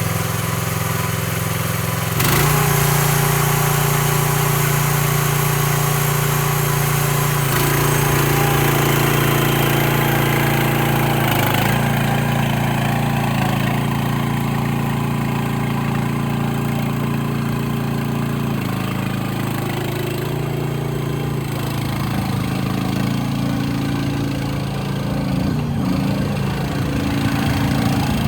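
Mini excavator's small engine running steadily. About two seconds in it gets louder and higher, and its pitch steps several more times, wavering up and down near the end.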